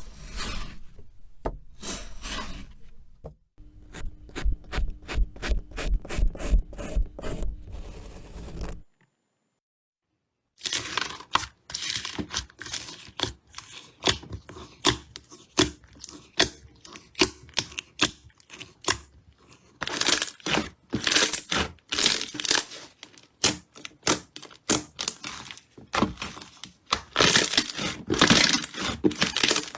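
Close-miked crackling and crunching from soft craft materials being cut and pressed, in short edited clips. About four seconds in comes a rhythmic run of heavier, deeper strokes. It breaks off for a brief silent gap, and then dense crackling and crunching resumes.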